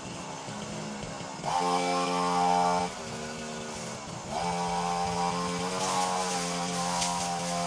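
Two-stroke brushcutter engine idling, then revved up to full throttle about a second and a half in, dropping back to idle near three seconds, and throttled up again a little past four seconds, held high to the end.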